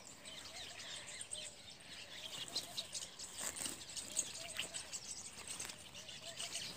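Birds calling faintly and repeatedly, with a few short rustles from a woven plastic sack being untied and pulled open.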